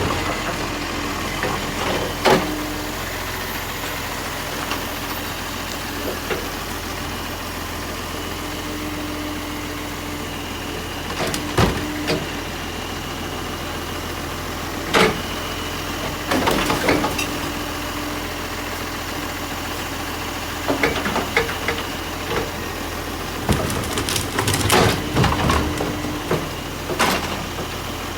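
Garbage truck engine idling steadily, with several sharp clanks and knocks over it, a cluster of them near the end.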